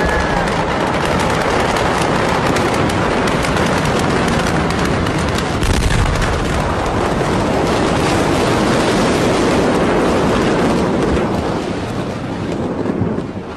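Rapid crackling and popping from the burning warehouse. About six seconds in comes a heavy low blast from the 2020 Beirut port explosion as the shock wave hits the phone. A rushing noise of wind and debris follows and eases off near the end.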